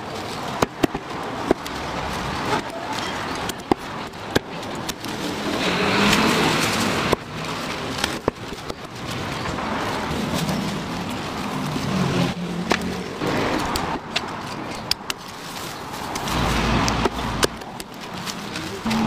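A meat cleaver chopping roast chicken on a wooden chopping block: sharp single chops at irregular intervals over a steady background din.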